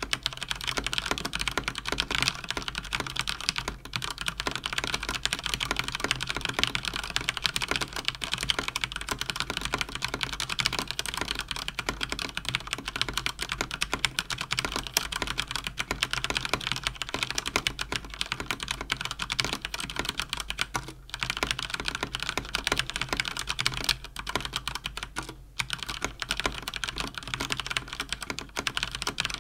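Fast continuous typing on a mechanical keyboard with Cherry MX Speed linear switches, a dense stream of key clacks with short pauses around 4, 21 and 25 seconds in.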